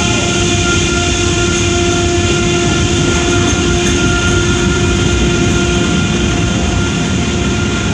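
Freight train rolling past, with a steady, loud, pitched drone from its single locomotive over the rumble of the cars. The locomotive's noise is odd enough that the watchers suspect a mechanical problem.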